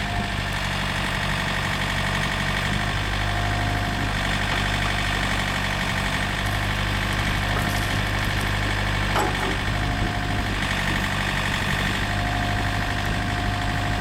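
Yanmar LX450 backhoe's diesel engine running steadily, with a thin whine that comes and goes and a single short knock about nine seconds in.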